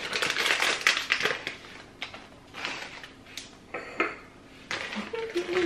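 Plastic snack bag of Tirol Choco chocolates being torn open and crinkled in the hands. The crackling is densest in the first two seconds and turns sparser after.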